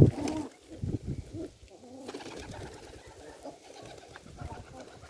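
Domestic pigeons cooing, low calls repeated over and over, after one sharp knock at the very start.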